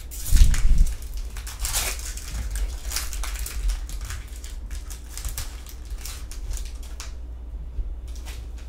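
Pokémon booster pack's foil wrapper crinkling and being torn open, with a low thump of handling in the first second.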